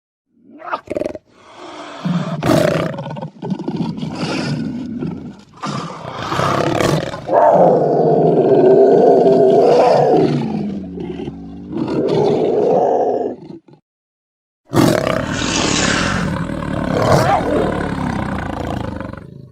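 Black panther (a big cat) growling and snarling in a run of short calls, then one long drawn-out roar-like call of about six seconds that bends in pitch. After a short break a second stretch of rough growls follows.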